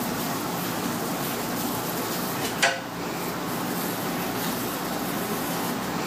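Steady background hum of indoor or street noise, with one sharp knock about two and a half seconds in.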